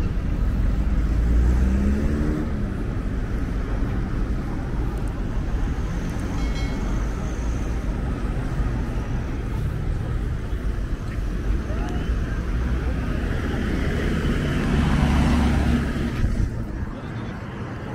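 Road traffic driving past on a wide city street: a bus and cars going by close at hand, engines and tyre noise as a steady rumble. It swells near the start and again a few seconds before the end as vehicles pass.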